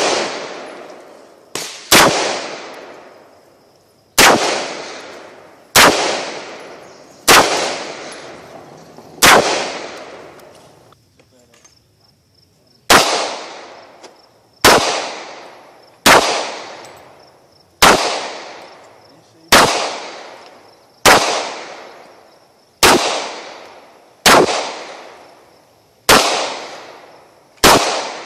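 Single shots from a newly built AR-15 in .223 Wylde, one every second and a half to two seconds, each echoing as it fades. After a short quiet gap near the middle, about ten evenly paced shots from a Taurus PT840 .40 S&W pistol follow.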